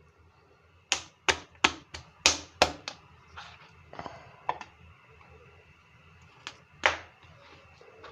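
Large kitchen knife chopping roast chicken on a plastic cutting board: a quick run of six sharp chops, about three a second, then a few scattered lighter cuts.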